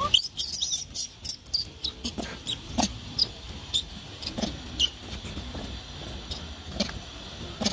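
Outdoor ambience of steady insect chirring, broken by irregular sharp clicks and a few short high chirps.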